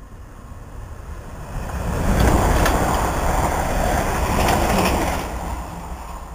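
Electric multiple unit passing close at speed: the rush and rumble of wheels on rail builds about two seconds in, stays loud for about three seconds with a few sharp clicks, then dies away as the train recedes.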